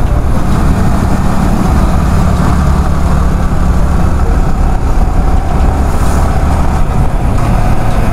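Yamaha R15 V3's single-cylinder engine running steadily as the bike rides along, with rushing wind noise on the camera microphone.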